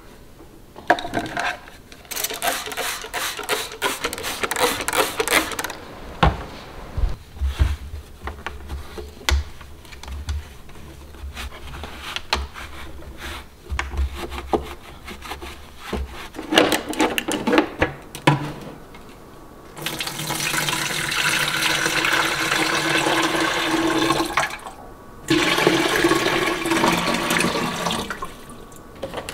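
A humidifier's white plastic base being handled and scrubbed, with low knocks and water splashing. Then water and vinegar poured from a jug into the humidifier's tank in two long, steady pours in the second half.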